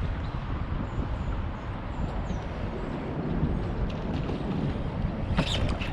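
Wind buffeting the microphone in a steady low rumble out on open water, with a short, sharp burst of noise near the end.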